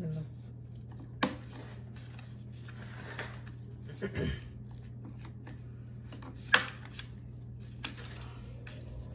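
Scattered clicks and knocks of a folding fat-tire electric bike's frame and handlebar being handled and moved, over a steady low hum. The sharpest click comes about six and a half seconds in.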